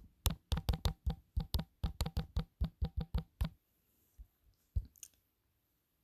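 Typing on a smartphone's on-screen keyboard: a quick, even run of key-press clicks, about five a second, stopping about three and a half seconds in, then a few single taps.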